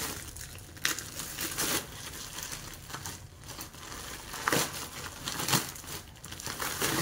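Plastic parcel bag being handled and worked open by hand: irregular crinkling and rustling, with a few sharper crackles.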